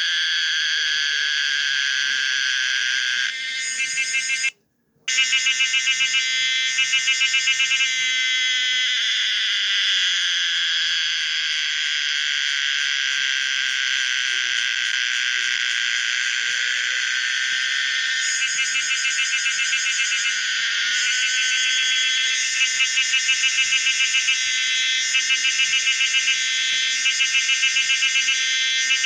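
Call of the cicada Pomponia linearis, in a version the uploader says he made from scratch: a loud, steady, shrill buzz that switches repeatedly into fast pulsing. It cuts out for a moment about four and a half seconds in, and near the end the pulsing comes in repeated bursts.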